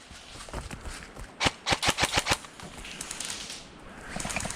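Airsoft guns firing in rapid bursts of sharp clicks, about ten shots a second: one burst about a second and a half in, and another starting near the end.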